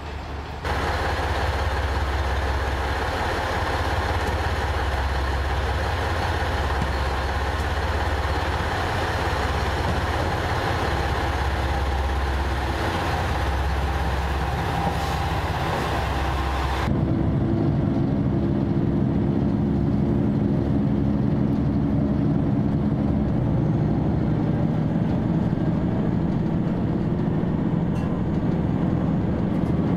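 Diesel railcar engines idling at a station platform, a steady low rumble. About halfway through, a cut to inside the cabin of a JR Shikoku 2000 series diesel limited-express train running under way, its engine note slowly rising near the end.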